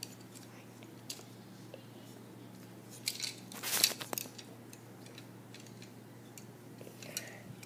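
Faint plastic clicks and handling rustle from a LEGO Hero Factory figure's leg joints being moved by hand, with a brief cluster of clicks and scrapes about three to four seconds in.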